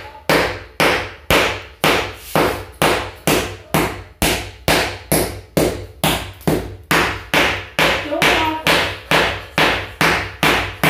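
Rapid, steady blows of a hand tool striking old ceramic floor tiles to break them up, a little over two sharp knocks a second.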